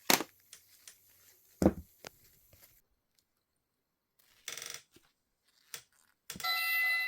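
Knocks and clicks of plastic toy parts being handled, two of them loud near the start. Near the end the electronic Magic Mixies mirror toy gives a sustained bright ringing chime with several steady pitches.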